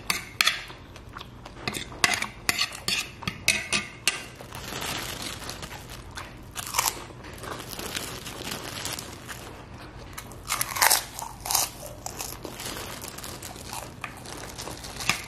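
Close-miked eating sounds: a spoon and fork clicking and scraping on a plate of fried noodles with ketoprak, and chewing. About eleven seconds in comes a loud crackly flurry, and near the end a plastic bag of crackers crinkles as the crackers are tipped onto the plate.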